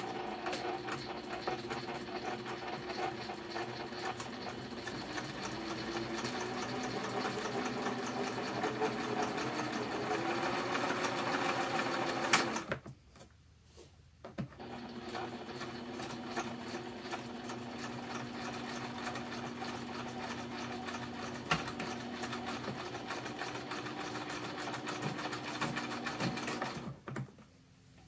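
PFAFF Synchrotronic 1229 sewing machine stitching through cloth. It runs steadily for about twelve seconds, stops with a sharp click, then stitches again for about another twelve seconds before stopping near the end.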